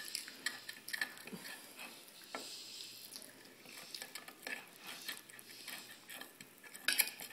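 Fork clinking and scraping on a china dinner plate: a scatter of small, light clicks, with a louder cluster near the end.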